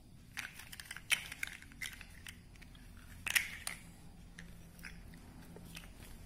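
Large plastic building blocks clattering and clicking against each other as they are picked through and fitted together, in irregular short knocks, the sharpest a little over three seconds in.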